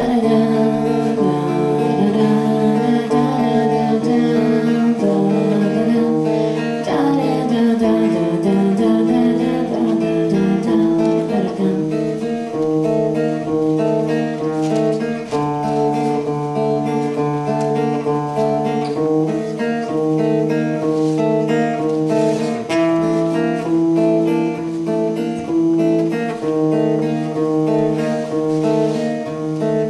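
Acoustic guitar played live, strummed and picked, with a woman's voice singing over it at times.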